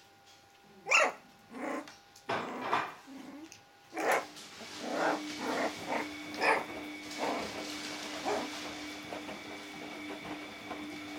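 Puppies yapping and growling at each other in play: a few sharp, loud yaps in the first four seconds, then softer yips and growls. A steady hum comes in about four seconds in and carries on.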